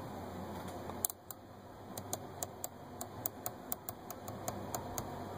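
A rapid run of light clicks, about four or five a second and somewhat irregular, starting about a second in, over a faint steady hum.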